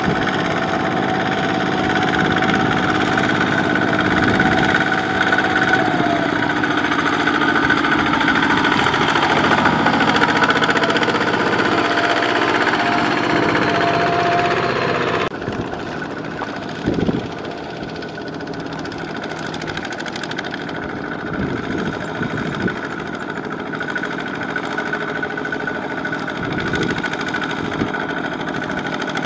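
Single-cylinder diesel engines of two-wheel walking tractors running under load through deep mud, the engine note shifting up and down in pitch. About halfway through the sound drops abruptly to a quieter engine running, with a short knock soon after.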